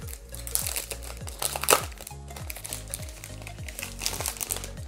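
Clear plastic sleeve crinkling in bursts as a tablet is pulled out of it, the loudest crackle about two seconds in. Upbeat background music with a steady bass line runs underneath.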